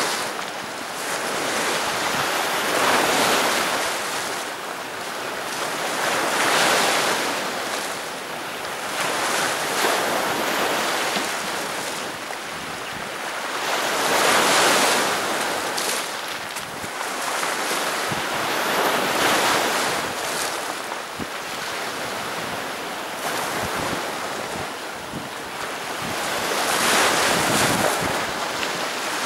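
Sea surf breaking on the beach, each wave swelling and washing in every few seconds in a slow, uneven rhythm.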